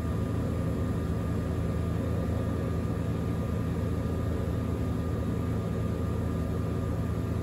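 Single-engine light aircraft's engine and propeller in flight, heard from inside the cockpit: a steady low drone under an even hiss, with no change in pitch.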